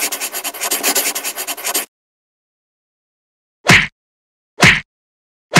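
Scratchy brush-on-paper writing sound effect, a fast run of rasping strokes for about two seconds. After a pause come three short swishes about a second apart.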